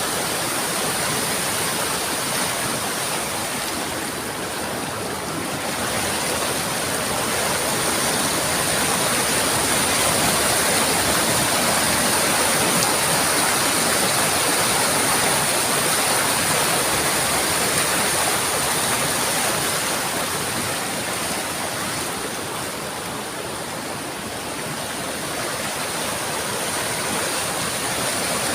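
Rushing river water, a steady full hiss that eases slightly twice, with a thin high steady whine above it.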